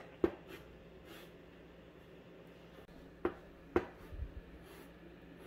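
Chalk writing on a blackboard: a few sharp taps of the chalk against the board, one just after the start and two close together about three seconds in, with faint scratchy strokes between.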